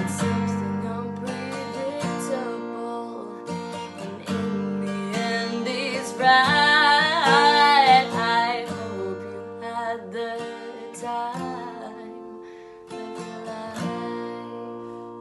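Acoustic guitar strummed, with a voice singing a long wavering note partway through. The song closes on a final chord left to ring out.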